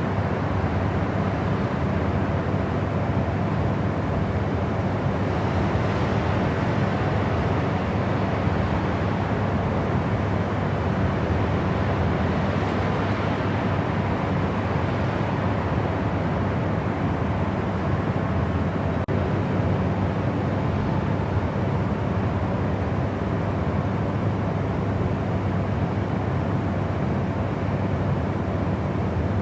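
Steady white noise sleep sound: an even, unchanging rush, heavy in the low end with little hiss on top.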